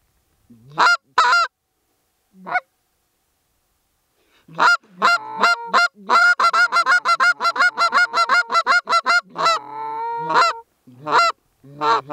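Hand-blown Canada goose calls: a few loud separate honks, then after a short pause a fast run of clucks with two calls overlapping, followed by longer drawn honks and more single honks near the end, calling to a passing flock of Canada geese to bring them in to land.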